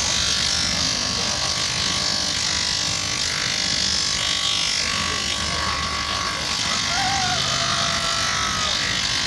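Bench grinder motor running steadily while a sandal sole is held against its sanding wheel, the sole grinding on the abrasive.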